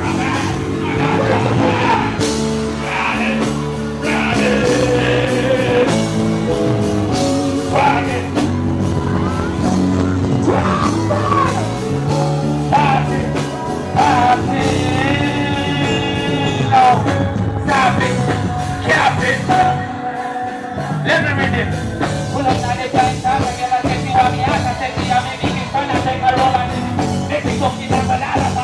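Live stage performance over a concert sound system: a vocalist sings into a microphone over a loud backing track.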